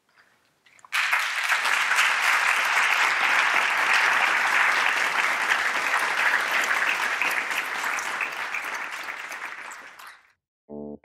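Audience applauding: the clapping starts abruptly about a second in, holds steady, then dies away near the end.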